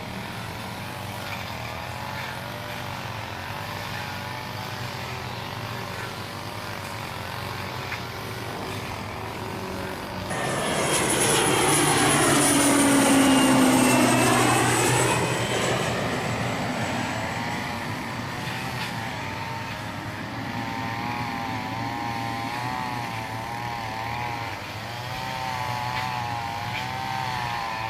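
Passenger plane passing low overhead as it comes in to land. Its engine sound swells sharply about ten seconds in and peaks a few seconds later, with a high whine that drops slightly in pitch as it passes. It then fades back to a steady engine hum.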